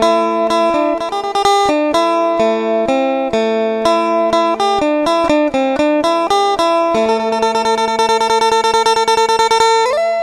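Instrumental music on a plucked string instrument playing a quick melody. From about seven seconds in it changes to a fast tremolo on held notes, then slides up in pitch near the end.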